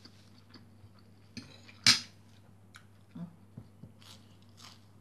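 A person chewing a mouthful of crunchy fried peanuts and anchovies, with a sharp loud crack about two seconds in and a few light clicks of a metal fork. Short crunching chews come again near the end.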